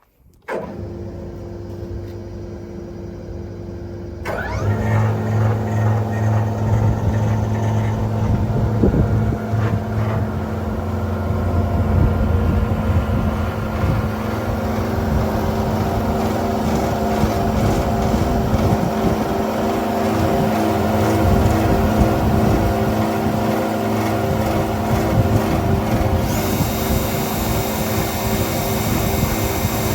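Jaroma DMUB-40 sliding table saw's electric motors starting: one spins up about half a second in and a second joins at about four seconds, then they run steadily with a hum. A higher hiss comes in near the end.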